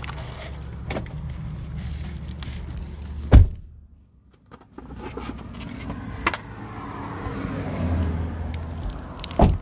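Handling noise of a phone held and moved against clothing and hair: a low rumble and rustling, with a loud knock about three and a half seconds in and another near the end.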